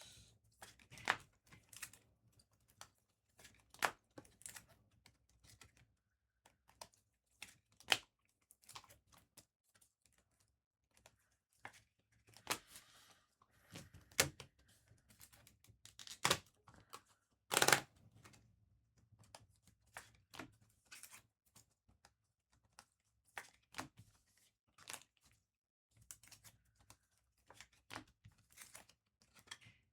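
Trading cards and their plastic sleeves and wrappers being handled on a table: irregular light taps and clicks with brief crinkling and rustling of plastic.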